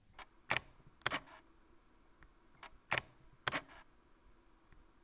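Fujifilm X-T30 mechanical focal-plane shutter firing twice at a half-second exposure. Each release is a click, then a second click about half a second later with a short dragging rattle behind it. The owner takes that rattle for the whole shutter mechanism moving back to its resting position.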